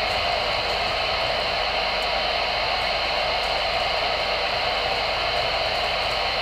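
Steady hiss of static from a Voyage CB radio's speaker with the squelch open on an empty channel, no station transmitting. A faint low hum sits under it.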